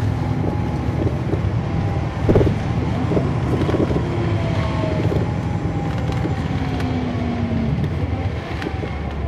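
Caterpillar C13 ACERT diesel engine of a NABI 40-SFW transit bus, heard from inside the cabin as it runs with a deep steady drone and faint whines slowly sliding in pitch. A short clatter about two seconds in.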